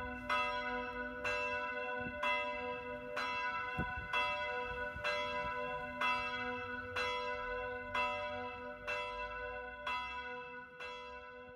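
Church bell ringing, struck about once a second, each stroke ringing on into the next. The sound dies away near the end.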